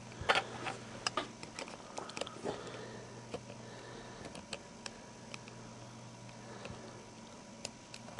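Small clicks and taps of fingers and tweezers working a mobile phone's replacement LCD ribbon into its connector, irregular and scattered, the loudest just after the start. A faint steady hum runs underneath.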